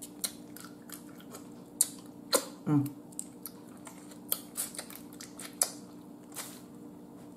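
Boiled blue crab shell being cracked and picked apart by hand, with sharp snaps and clicks scattered throughout, mixed with close-up wet mouth sounds of eating the crab meat.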